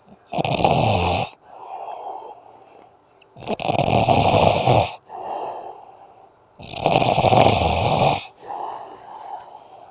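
A man snoring in his sleep: three loud snores about three seconds apart, each with a low rattle, and a softer breath between each one.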